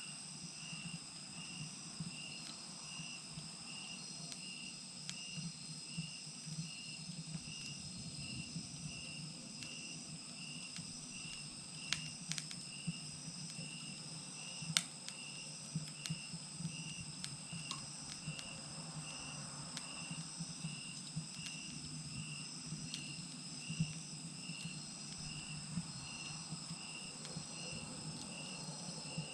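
Wood fire crackling in a clay chiminea, with scattered sharp pops and two louder pops near the middle. Behind it, crickets chirp and trill steadily in an even, repeating rhythm.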